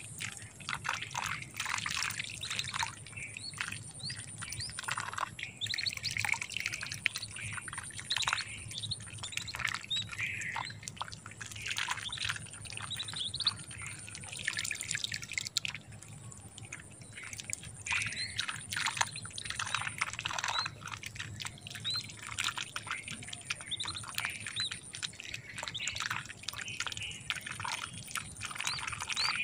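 Lesser whistling duck ducklings peeping: a continual run of short, high, rising chirps. A steady high-pitched whine sounds in the background, breaking off and coming back several times.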